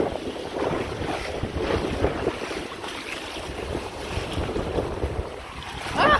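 Shallow water splashing and sloshing in irregular surges around a fish being released, with wind rumbling on the microphone.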